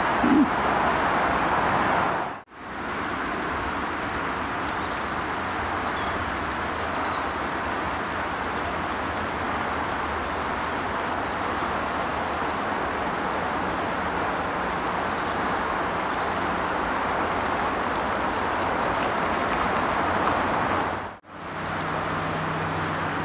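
Steady rush of river water running over shallow rapids, broken by two short gaps.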